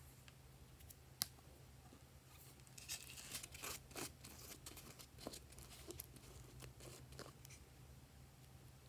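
Plastic lid being twisted and pulled off a plastic jar of slime. A sharp click comes about a second in, then a run of crackly plastic scrapes and clicks, over a faint low hum.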